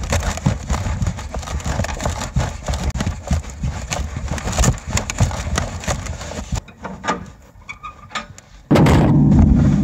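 Rapid, irregular knocks and thumps as the bait package is jostled while someone runs with it, heard from inside the box. The knocks thin out to scattered clicks, and near the end a sudden loud, steady low noise starts as the lid opens.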